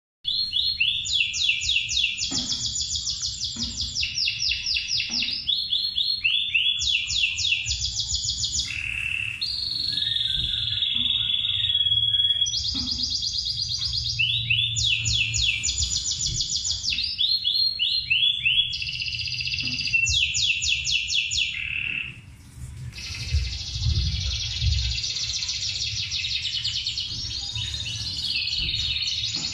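Domestic canary singing, played through a television: long phrases of fast trills and rapidly repeated high notes, one after another, with a brief break about three-quarters of the way through.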